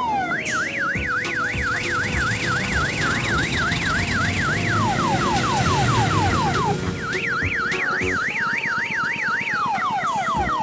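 Electronic siren sound effect cycling through its patterns. It gives a rapid up-and-down yelp, about four sweeps a second, for roughly four seconds. Then come a run of quick falling sweeps and another yelp with a short steady tone, and falling sweeps again near the end, over a low traffic rumble.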